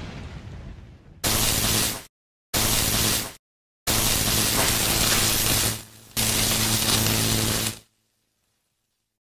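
Electric-arc sound effect: four bursts of crackling static over a low electrical hum, each starting and cutting off abruptly with dead silence between. A fading rumble dies away in the first second.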